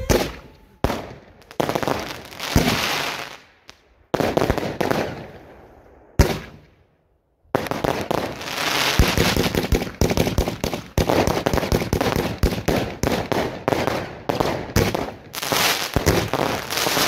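Fireworks going off at close range: single sharp bangs with noisy bursts trailing off, then, from about seven and a half seconds in, a dense, continuous crackle of many small reports.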